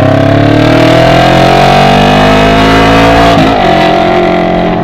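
Carbureted Honda CB 500 parallel-twin engine run with its exhaust removed, only the bare pipe, very loud and open. The revs climb steadily for about three seconds, then drop back sharply and settle lower.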